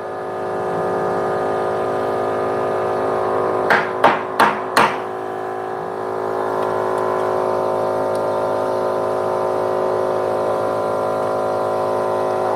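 Steady electrical hum from workshop equipment runs throughout. A little under four seconds in come four quick, sharp taps of metal on metal as a steel hinge-pin rod is handled against the steel hinge and bench.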